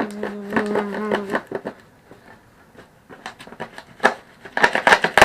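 A man's voice holding a hummed "shoom" sound effect for about a second and a half, then scattered clicks and rustles of packaging and parts being handled during an unboxing, thickest near the end.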